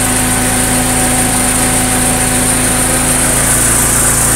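Freshly rebuilt Porsche 944 four-cylinder engine idling steadily at operating temperature, with its electric radiator cooling fans running.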